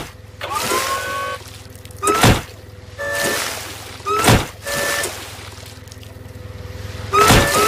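Cartoon forklift running with a low engine hum while its forks are rammed again and again into a beached whale's flesh: loud impacts about two seconds apart, with spells of engine noise rising in pitch between them, then a quick run of hits near the end.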